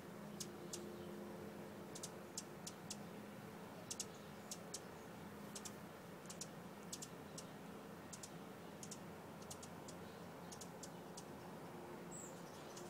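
Hummingbird singing: a scratchy song of short, high, dry ticks and squeaks in irregular runs, over a faint steady low hum.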